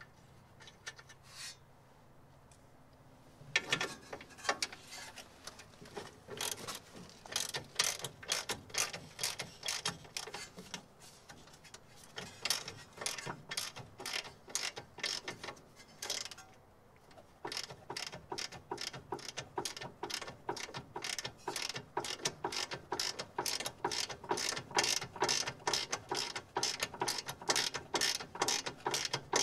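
Ratcheting combination wrench clicking as it is swung back and forth on a suspension nut. The clicks start a few seconds in, come irregularly at first, stop briefly just past halfway, then run steadily at about three a second.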